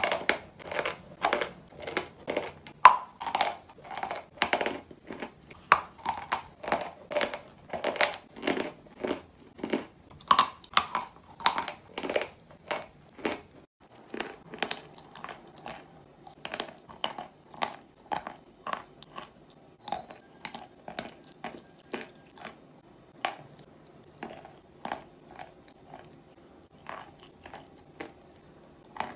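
A person biting and chewing chunks of chalk close to the microphone: dry crunches about twice a second, softer after a cut about halfway through.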